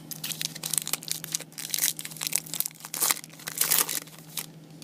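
Trading card pack wrapper being torn open and crinkled by hand: a run of irregular crackling rustles that stops a little over four seconds in.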